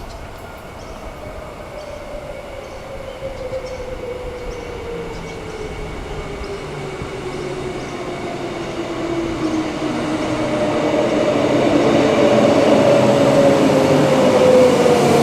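Queensland Rail electric multiple unit train running, its motor whine gliding slowly down in pitch while the overall sound grows steadily louder.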